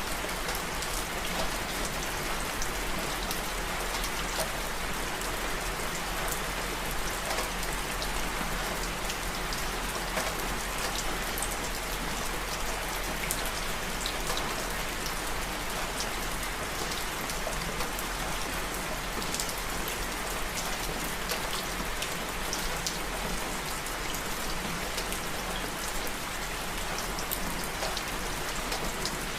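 Steady rain falling, with the patter of many individual drops striking a surface.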